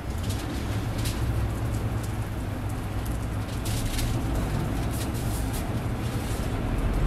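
Aluminium foil crinkling in a few short rustles as it is handled around a toast, over a steady low hum and an even crackling hiss.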